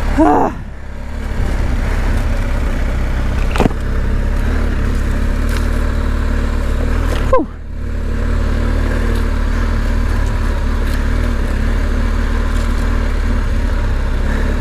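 BMW R 1250 GS's boxer-twin engine running at low revs on a dirt track, a steady low rumble. Sharp knocks sound near the start, about a quarter of the way through, and loudest about halfway through.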